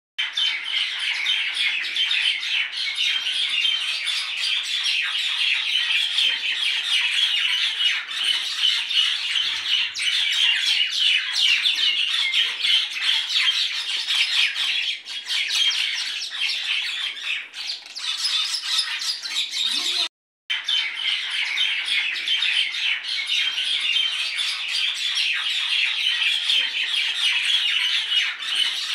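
Many small birds chattering and squawking together in a steady, dense din, cut off for a moment about twenty seconds in.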